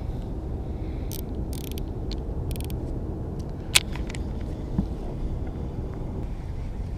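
A baitcasting reel being handled: a few light clicks and short whirs, then one sharp click about four seconds in, over a steady low rumble.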